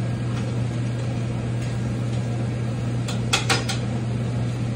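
Steady hum of commercial kitchen ventilation, with a quick run of four metallic clinks of a utensil against sauté pans on the range a little after three seconds in.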